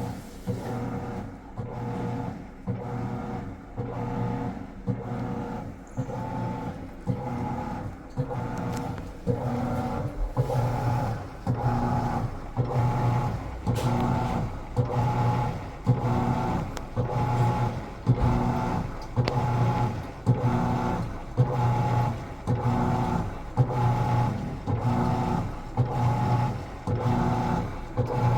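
Whirlpool washing machine running, its motor hum swelling and fading about once a second in a steady rhythm, a little louder after the first ten seconds.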